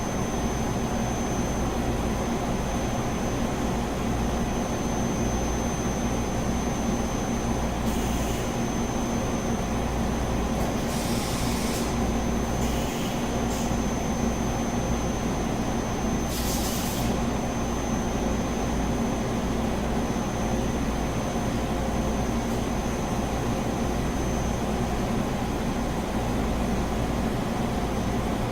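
CNC boring mill running steadily, a constant mechanical drone with a low rumble and a faint high steady whine, broken by a few short hisses around 8, 11 to 13 and 16 seconds in.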